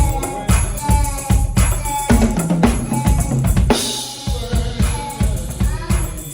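Music with a drum kit playing a steady beat, bass drum and snare to the fore, under sustained pitched instruments. About four seconds in, the low beat briefly stops while a cymbal wash comes in, then the beat resumes.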